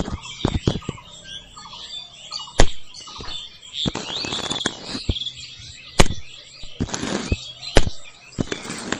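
Irregular sharp knocks and brief rustles as green stalks are lifted out of a small model trolley and dropped onto the ground, the loudest knocks about two and a half and six seconds in. Birds chirp faintly in the background.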